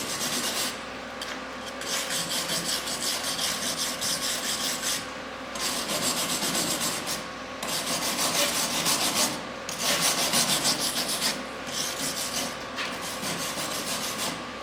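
MIG welder arc crackling in a series of short bursts of one to three seconds with brief pauses between, as weld is laid over old brazing on mild steel.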